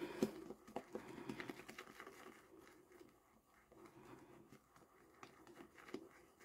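Shaving brush swirling wet shaving cream around a lathering bowl: a faint, quick, irregular wet patter and scratch of bristles working a lather still thin with water from the brush.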